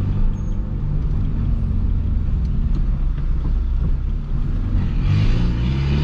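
Peugeot 206 1.4 four-cylinder engine through a straight pipe with the muffler removed, running steadily at low revs, then accelerating about five seconds in, its pitch rising.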